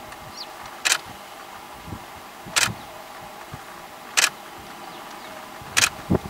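Four sharp, brief clicks at an even pace, about one every second and a half, over a steady low background hum.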